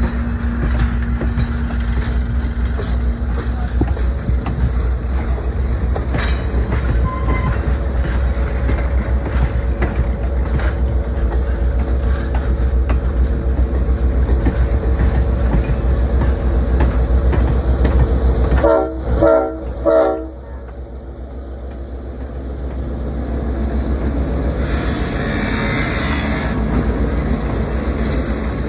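Train running with a steady low rumble, then a locomotive horn sounding three short blasts about two-thirds of the way through. The rumble drops off right after the horn, and a hiss swells and fades a few seconds later.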